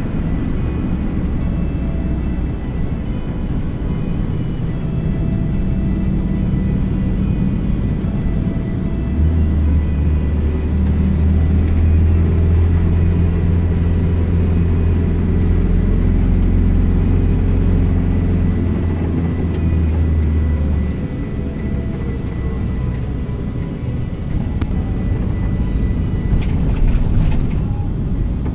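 Iveco Daily minibus's 3.0-litre diesel engine running under way, heard from inside the cabin with road noise. The deep engine drone grows louder and stronger for about twelve seconds in the middle, as the engine works harder, then eases off.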